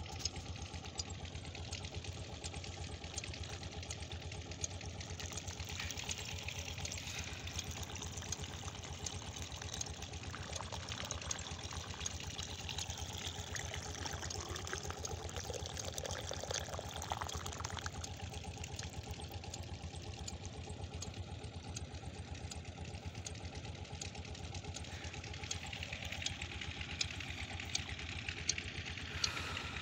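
Water trickling and pouring from a dirt channel into a rat's burrow as it floods, over a steady engine hum.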